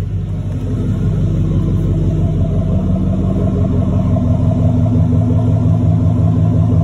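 Chevrolet Silverado pickup's engine idling steadily, heard at the tailpipe, growing somewhat louder over the first two seconds.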